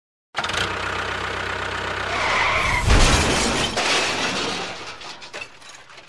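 A motor running, cutting in abruptly about a third of a second in, with a heavy thump about three seconds in, then fading away near the end.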